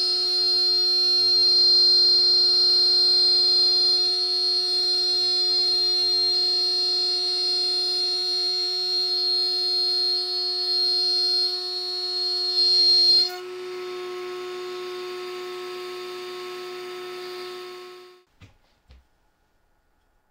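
Table-mounted wood router cutting a plywood board fed past the bit: a loud, steady high whine. About thirteen seconds in, the cut ends and the router runs free, quieter and steadier, then stops a little after eighteen seconds, followed by two faint knocks.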